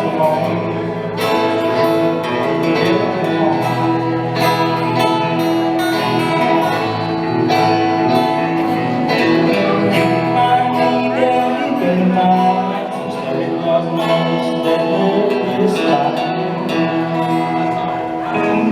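Live country music: a guitar-led band playing, with a singing voice.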